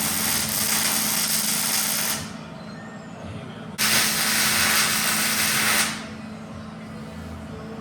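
Two bursts of steady, crackling electric-arc noise from an arc torch on steel, the first stopping about two seconds in and the second lasting about two seconds near the middle, each cutting off abruptly, over a steady low hum.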